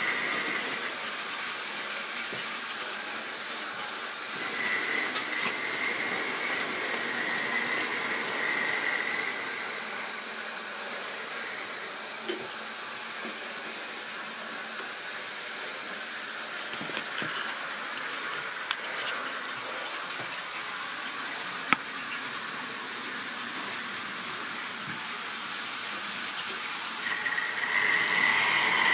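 OO gauge model train running on sectional track: a steady rolling rush with a higher whine that swells twice, from about five seconds in for a few seconds and again near the end. A few single sharp clicks sound over it.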